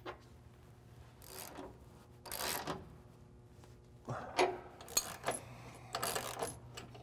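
Hand ratchet and socket tightening a bolt while a wrench holds the nut: the ratchet's pawl clicks in short bursts on each back-stroke, about five strokes, with a few sharper metal clinks.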